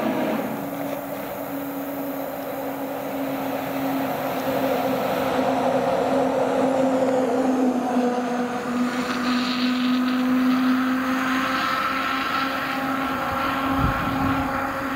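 Heavy special operations rescue trucks driving past on emergency response, with a steady drone and a held tone that grow louder as a truck passes close in the middle. A brief low thump comes near the end.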